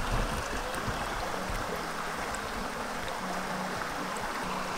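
Shallow spring-fed creek water running steadily over rocks, an even close-up rush of flowing water. Faint background music plays underneath.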